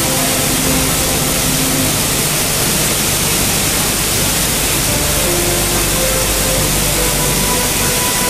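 Maize roller mill plant running: a loud, steady, even rush of machine noise with no clear rhythm. Faint music notes sound underneath.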